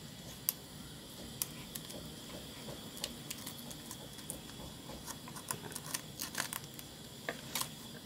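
Fresh banana leaf being folded and pinned with a wooden toothpick: scattered light clicks and crackles, a little denser near the end.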